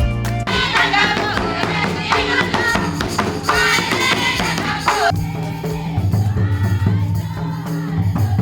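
Tribal dance music: a group of voices singing with jingling, rattling percussion, giving way about five seconds in to steadier instrumental music with a strong bass.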